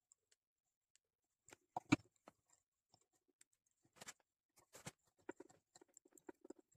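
Small clicks, taps and rustles of hands handling tools and materials at a fly-tying bench, with a louder knock a little under two seconds in and a quick run of light ticks near the end.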